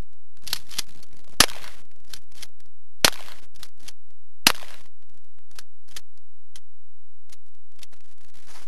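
Three loud gunshots about a second and a half apart, with fainter cracks in between and after.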